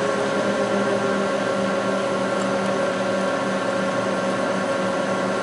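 Electric radiator fans driven by a PWM fan controller, running steadily at the preset speed the controller sets when its AC-enable input is switched on.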